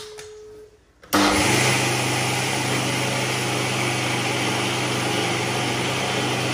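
Preethi mixer grinder switched on about a second in, its motor then running steadily at full speed as it grinds wet rice batter in the steel jar.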